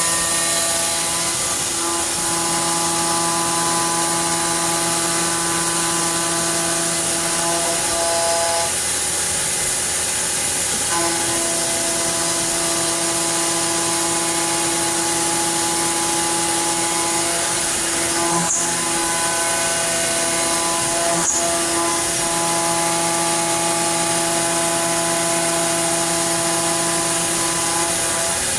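Fadal VMC4020 vertical machining center running under power: a steady mechanical whir with a hiss, and a layered motor whine that cuts out for about two seconds around nine seconds in, then resumes. Two sharp clicks come a few seconds apart near the middle.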